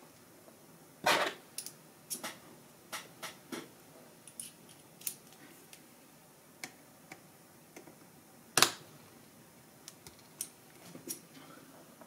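Scattered sharp clicks and taps of small metal hand tools, precision screwdriver bits and drivers being picked up and set down on a work surface, with two louder knocks, about a second in and past eight seconds.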